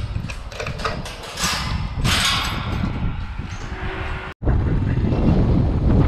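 Chain and metal latch of a wire-mesh farm gate rattling and clinking as it is unchained by hand, a quick run of sharp clicks in the first two seconds or so. After a cut about four seconds in, a steady low rumble of wind on the microphone.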